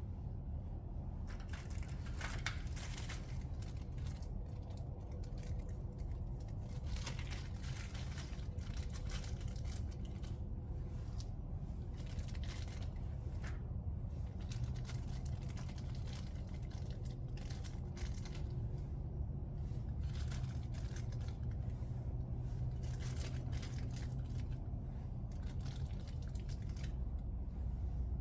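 Irregular clicks, rattles and rustles of small plastic connectors and hand tools being handled while a new electrical connector is fitted to a fuel pump's wires, over a steady low hum.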